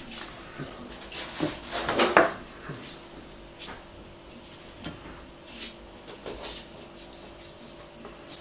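Kitchen knife cutting through pork fat and meat on a wooden cutting board, with the blade scraping and knocking on the board. A busy run of cutting and knocks about a second or two in, the loudest of them near two seconds, then a few single sharp taps spaced out.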